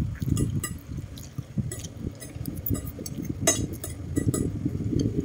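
Metal fork clinking against a ceramic plate while eating, a few scattered sharp clinks, the loudest about three and a half seconds in, over a low steady rumble.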